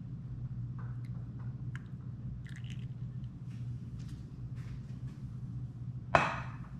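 Small clinks and drips as the last of a cream mixture is poured from a stainless steel pot into glass jars, over a steady low hum. About six seconds in comes a single sharp knock with a short ring.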